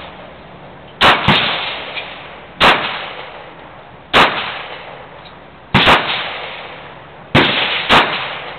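Compact 9mm-class semi-automatic pistol fired in a steady string: about eight sharp shots, mostly a second and a half apart, with two quick pairs. Each report is followed by a short echoing tail under the range's covered roof.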